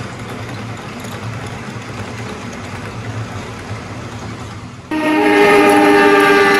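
Miniature model train running on its layout with a steady low hum. About five seconds in, a loud multi-tone train horn starts suddenly and holds.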